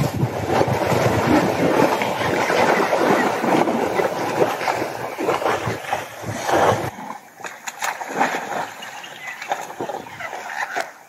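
Elephants wallowing in a muddy waterhole: thick mud and water sloshing and splashing as a large elephant rolls and heaves itself up. About seven seconds in it drops away to scattered smaller splashes.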